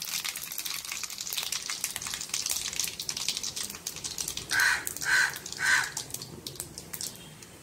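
Mustard seeds, cumin and dried red chillies crackling and spluttering in hot oil in an aluminium kadai, the popping thinning out towards the end. A little past halfway come three short high tones about half a second apart.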